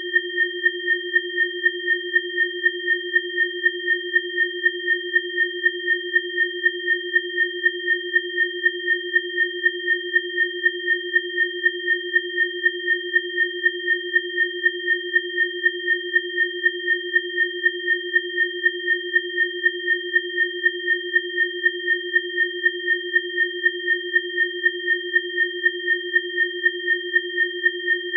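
Electronically generated pure tones held steady at a low, a middle and a high pitch, with the loudness pulsing evenly about three times a second: a biofrequency sound-therapy tone track.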